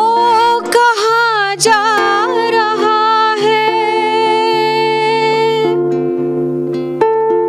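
A woman singing a Hindi song at a microphone, an ornamented phrase with wavering pitch that settles into one long held note and stops about six seconds in. Guitar accompaniment sustains chords beneath and plays on alone, with a plucked note near the end.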